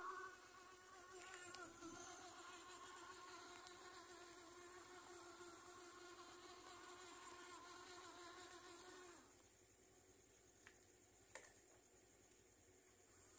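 Small electric motors of a homemade remote-control helmet robot running with a faint, steady, high buzzing whine as it drives, stopping about nine seconds in. Two faint clicks follow.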